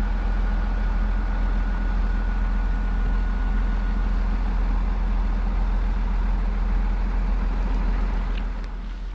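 Steady rushing of a mountain stream's flowing water, with a deep rumble underneath, easing a little near the end.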